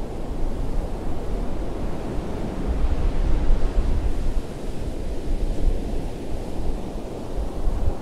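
Ocean surf breaking on a sandy beach: a steady rush of waves with a deep low rumble that swells and eases.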